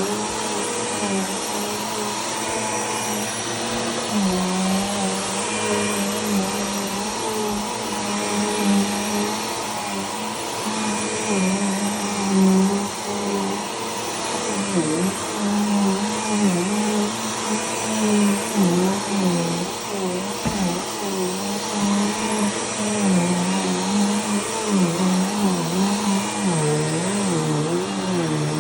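Bissell PowerForce Turbo Pet upright vacuum cleaner running steadily while vacuuming. Its motor pitch wavers up and down repeatedly in the second half.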